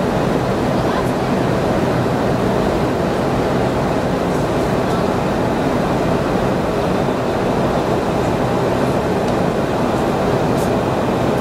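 Steady roar of a Boeing 717-200's rear-mounted Rolls-Royce BR715 turbofans and rushing air, heard inside the cabin.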